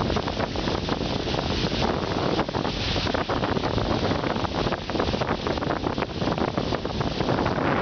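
Wind buffeting the microphone: a loud, steady rushing noise that flutters rapidly in strength, with no distinct engine tone.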